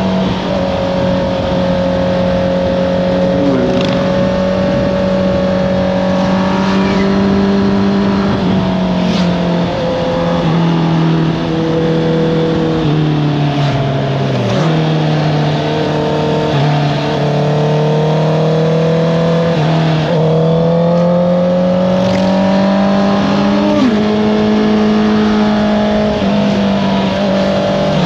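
Honda CBR650R inline-four engine through an Akrapovič exhaust, ridden hard: the engine note rises and falls repeatedly, with several sudden drops in pitch as the rider shifts and rolls off through corners.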